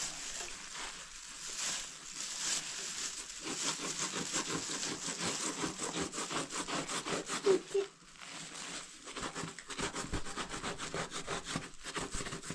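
Kitchen knife sawing through cloth in quick repeated rasping strokes, with a brief pause about eight seconds in.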